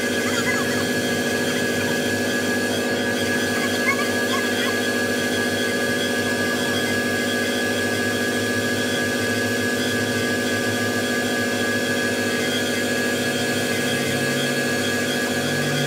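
Air compressor running steadily, feeding air to lifting cushions as they inflate under an overturned army truck body: a constant hum with a high whine over it.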